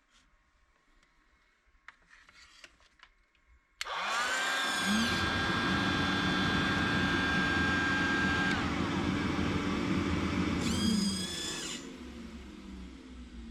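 An electric power tool's motor starts suddenly about four seconds in, spins up, runs steadily for about seven seconds and then winds down. A deeper steady motor hum joins a second after the start, fitting the workshop vacuum starting up with the tool.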